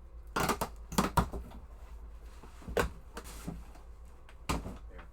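A large cardboard shipping box being pried open by hand: several short, sharp rips and knocks of cardboard flaps.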